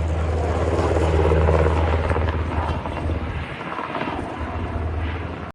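Helicopter drone with a steady low beat, loud at first and fading after about three seconds.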